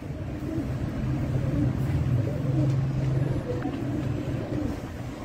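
Domestic pigeons crowded in a wire cage cooing, a low continuous murmur of overlapping coos.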